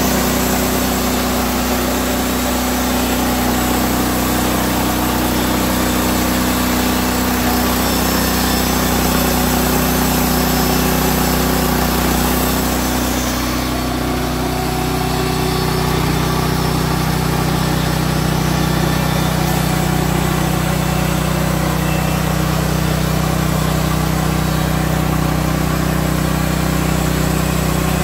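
Woodland Mills HM130 band sawmill running steadily on its Kohler petrol engine, the band blade cutting through a log. About halfway through, the engine note shifts once and then holds steady.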